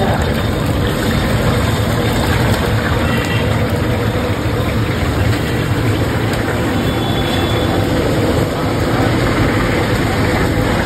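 Bara (lentil fritters) deep-frying in a large wok of hot oil: a steady sizzle over a constant low rumble.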